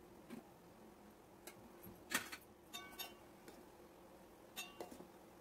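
A few light clinks of a steel spoon against steel cookware as gulab jamuns are turned in hot ghee, some ringing briefly like struck metal. The loudest clink comes about two seconds in.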